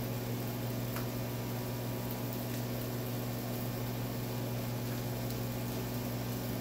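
Microwave oven running with a steady low hum, with a few faint light clicks over it.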